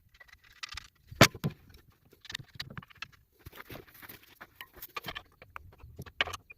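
Metal parts and tools clinking and clanking as they are handled, a run of irregular short clicks and knocks with one sharper clank about a second in.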